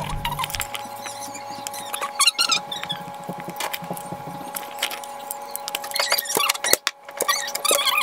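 A knife cuts through a raw potato held in the hand, and the cubes drop into a plastic bowl: a run of short crisp cuts and clicks with squeaky scrapes from the firm flesh. A faint steady hum runs underneath.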